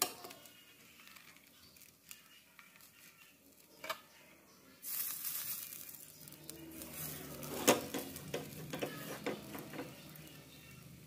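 Frying pan for bánh xèo: a sudden loud sizzle starts about five seconds in and fades over the next couple of seconds, followed by clinks and knocks against the pan, the loudest a sharp clink near eight seconds.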